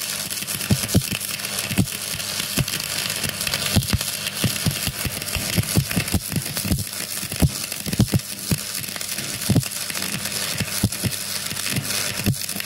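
Two stick-welding electrodes arcing at once on a steel plate, fed by one welding machine: a steady crackling hiss of the arcs, broken by frequent irregular low pops, over a steady low hum.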